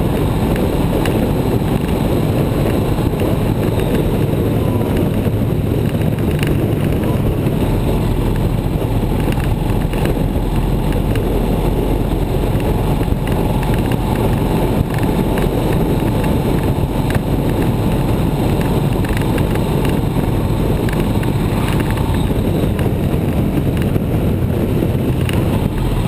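Motorcycle cruising at steady road speed: the engine's constant drone mixed with the rush of wind on the microphone.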